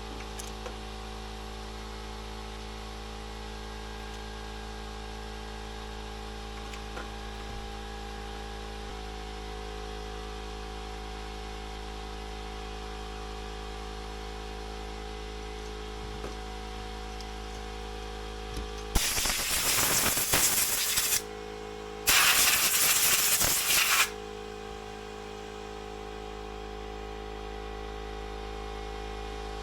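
Two loud hissing bursts, each about two seconds long with a short gap between them, over a steady hum.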